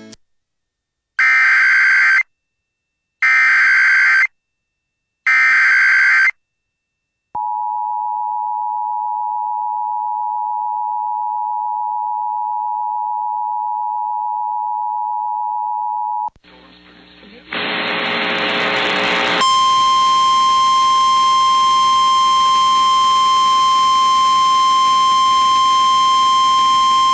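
Emergency Alert System broadcast tones: three one-second bursts of the screeching digital SAME header, then about nine seconds of the steady two-tone EAS attention signal. After a brief hiss, a single steady tone plays over static: the relayed NOAA Weather Radio warning alarm, announcing a flash flood warning.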